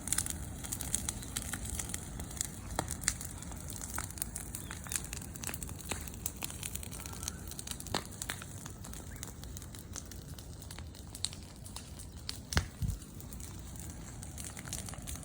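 Wood campfire burning, with irregular crackles and pops, and one louder low thump about twelve seconds in.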